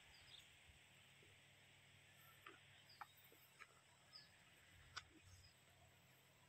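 Near silence: faint outdoor ambience with a few faint, sharp ticks scattered through it and a few brief, distant bird chirps.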